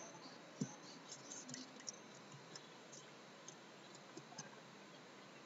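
Near silence broken by a few faint computer mouse clicks, one sharper click about half a second in.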